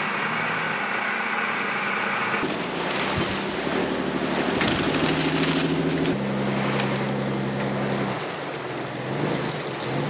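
A fishing boat's engine runs with a steady hum inside the wheelhouse. About two and a half seconds in, the sound changes to the open deck in rough seas: wind and rushing, splashing waves over the engine's drone.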